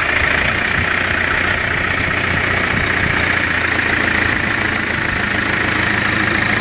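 Mahindra 575 DI tractor's four-cylinder diesel engine running at a steady idle.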